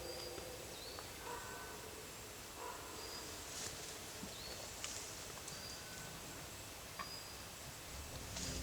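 Faint, short, high-pitched chirps of small songbirds, repeating every second or so over a quiet hiss of forest ambience. Music begins to swell in near the end.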